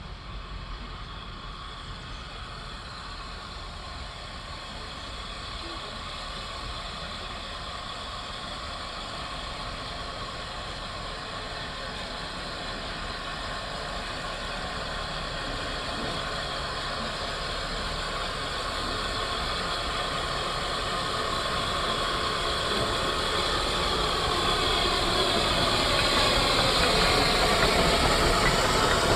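Small narrow-gauge steam tank locomotive working a train, getting steadily louder as it approaches and draws alongside.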